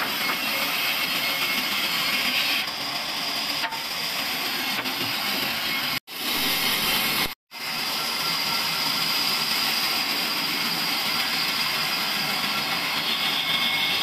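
Large bandsaw running steadily with a high whine as boards are fed through it and ripped into slats. The sound cuts out twice, briefly, around the middle.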